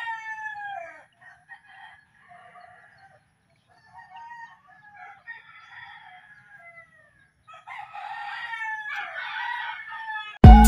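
Roosters crowing several times in the background, long calls that fall in pitch. Loud music starts suddenly near the end.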